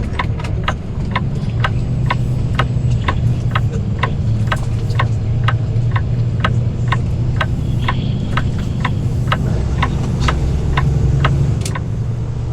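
Truck turn signal clicking steadily, about two to three clicks a second, over the steady low hum of a heavy-haul semi truck's diesel engine.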